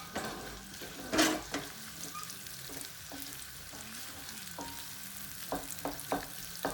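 Chopped onion and garlic sizzling in hot olive oil in a pan while being stirred, with a loud stroke of the utensil against the pan about a second in and a few lighter knocks near the end.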